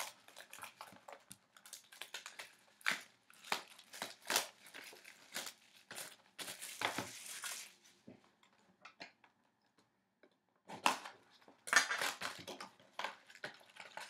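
Hockey card box and packs being handled and opened by hand: crinkling wrapper and cardboard rustling with quick clicks and scrapes, a pause of a couple of seconds past the middle, then more rustling.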